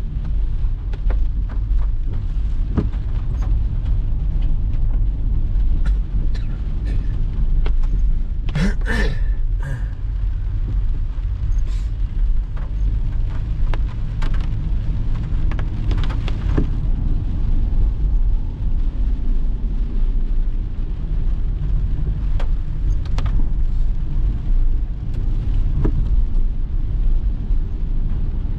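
Car cabin noise while driving in heavy rain: a steady low rumble of engine and tyres on the wet road, with raindrops ticking on the windshield and roof. A brief louder sound rises about nine seconds in.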